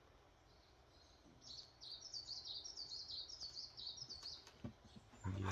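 A small songbird singing a quick run of short, high chirping notes, about four a second, for about three seconds. Near the end comes a brief, louder low sound.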